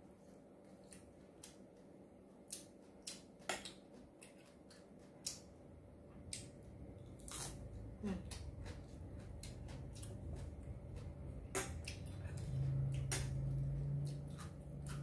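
Close-up eating sounds: chewing and crunching of raw winged bean and other fresh vegetables, with sharp clicks of a spoon and chopsticks against bowls. A low steady hum comes in near the end and is the loudest part.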